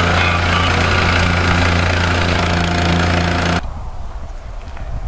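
Vibratory plate compactor with a small engine running steadily as it is pushed over soil. The sound cuts off abruptly about three and a half seconds in, leaving a much quieter background with a few faint clicks.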